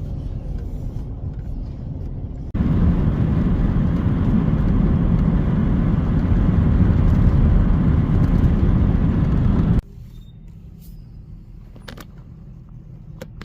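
Car road noise while driving on the interstate, a steady low rumble of tyres and engine. It jumps much louder from about two and a half seconds in, then drops sharply to a quieter hum with a few clicks near the end.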